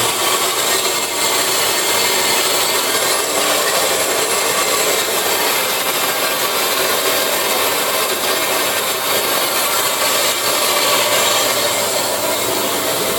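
Roll-In Saw TF1420 vertical swivel-head band saw running, its blade set at 200 feet per minute, while the air-operated feed drives the head forward: a steady, even machine noise.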